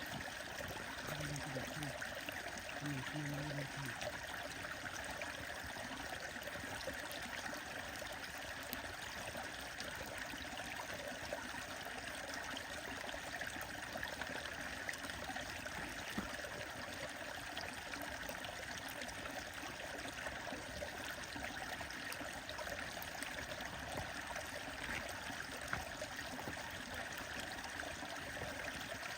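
Stream water flowing and trickling in a steady rush, with a few faint sharp clicks.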